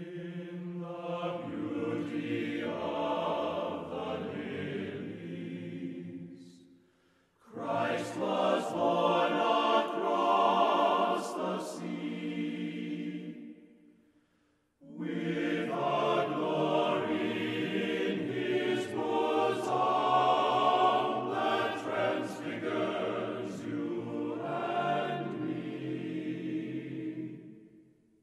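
Music of voices singing together in long held phrases, in three passages broken by short pauses about 7 and 14 seconds in.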